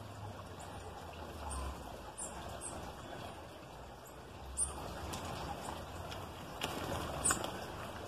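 Small birds at a fruit feeder giving short, high chirps scattered throughout, the sharpest about four and a half and seven seconds in, over a steady low background rumble.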